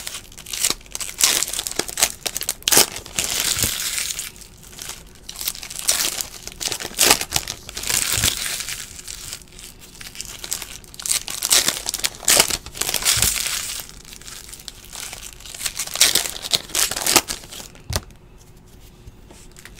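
Foil trading-card pack wrappers crinkling and tearing open in irregular bursts as stacks of cards are handled. It grows quieter near the end.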